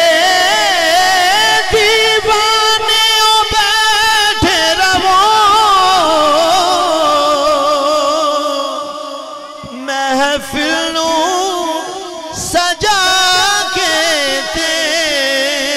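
A man singing a Punjabi naat into a microphone, drawing out long, wavering melismatic notes without words. The line sinks slowly in pitch, softens briefly about two-thirds of the way in, then picks up again.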